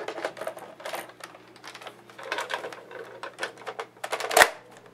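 Plastic clicking and rattling of a Nerf blaster being handled and loaded with a dart, with one loud sharp snap near the end.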